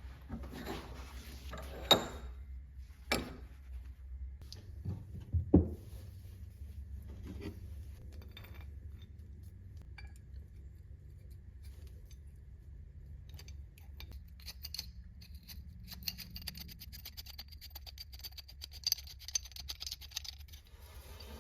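Steel pipe wrench parts being handled and clinking against each other, with sharp metal knocks about 2, 3 and 5½ seconds in, then a run of rapid faint ticking and rattling near the end, over a low steady hum.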